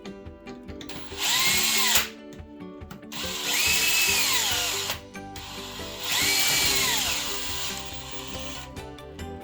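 Small electric power drill or driver running in three short bursts. Each time its whine climbs as it spins up, holds briefly and falls away as it stops. Background music plays throughout.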